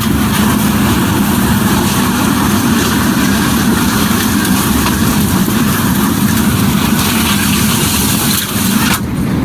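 Steady loud rushing of strong storm wind on the microphone, cutting off suddenly near the end.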